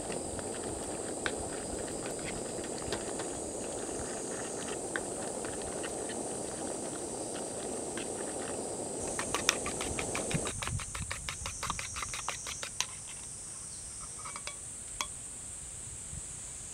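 A camp stove burner runs with a steady rushing hiss under a metal mess tin while tongs tap and scrape the tin. About ten and a half seconds in, the flame is shut off and the rushing stops suddenly, leaving quick clicks of the tongs on the tin over a steady high drone of insects.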